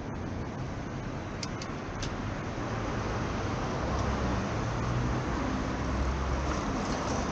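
Street traffic: a steady hum of passing vehicles, with a low engine rumble growing louder from about three seconds in as a vehicle comes close.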